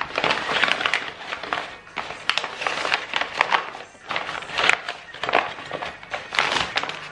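Brown kraft paper crinkling and rustling in repeated bursts as hands fold it and press it flat around a parcel.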